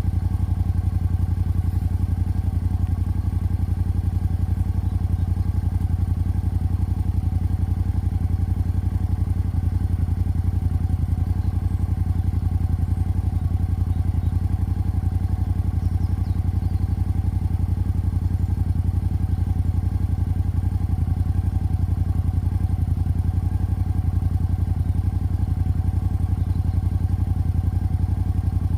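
Suzuki Gladius's 645 cc V-twin idling steadily on a cold start, still warming up.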